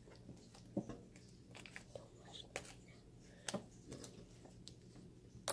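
Homemade glue-and-borax slime being squished and stretched by hand for ASMR, giving scattered faint wet clicks and pops, the loudest near the end.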